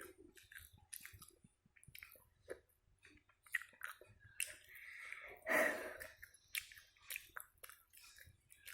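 A person chewing chicken in sweet soy sauce close to the microphone, with many short wet mouth clicks and smacks. One louder, longer mouth sound comes about halfway through.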